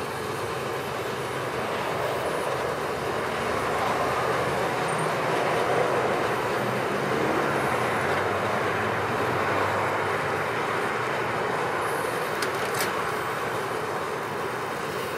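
Electric motor and geared drivetrain of an Axial SCX6 1/6-scale RC rock crawler whining steadily under load as it climbs, getting louder midway and easing off near the end.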